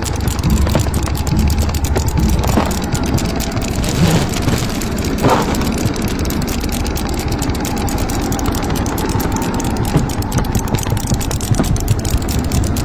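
Wind sound effect in a cartoon soundtrack: a loud, steady rush of air with a few brief swishes.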